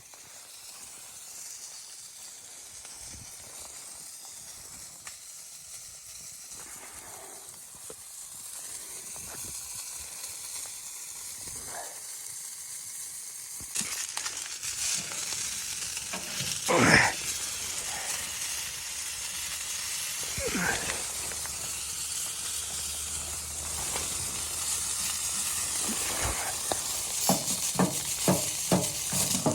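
Food sizzling and frying in a pan, getting louder about halfway through. There is one sudden loud scrape and a few quick clicks of stirring near the end.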